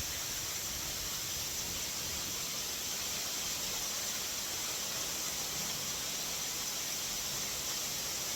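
Steady hiss of water rushing over rocks, unbroken throughout.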